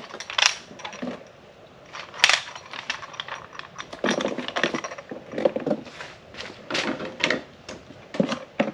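Small sprayer parts clinking and rattling as they are sorted and handled in a parts box: irregular sharp clicks and clinks.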